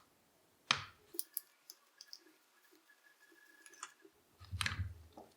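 Small metal clicks and taps of an Allen wrench and tiny screws being worked into a shotgun stock's cheek rest: one sharp click about a second in, a run of light ticks after it, and a cluster of handling knocks near the end.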